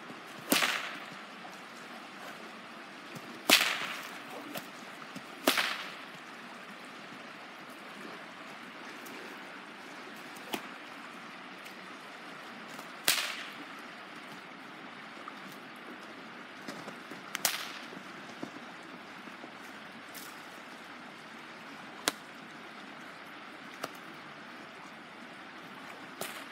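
Leather bullwhip cracking: about five loud, sharp cracks a few seconds apart, the loudest about three and a half seconds in. Several fainter cracks follow later on.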